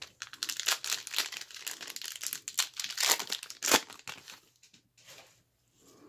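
A 1990-91 Skybox Series II trading-card pack torn open by hand, its wrapper crinkling and tearing for about three seconds, with one sharp crackle near the end; then softer rustling as the cards come out.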